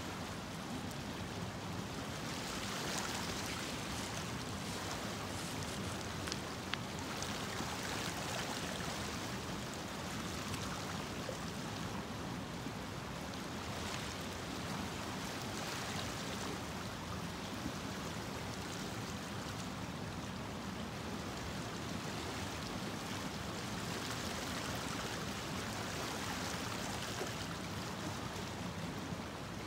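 Shallow stream running steadily over rocks: an even rushing of water.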